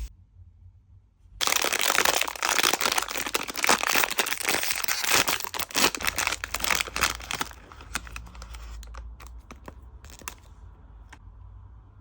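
Blind box packaging being crinkled and torn open: a dense run of crackling starts after a second or so and lasts about six seconds, then thins to scattered crackles and clicks.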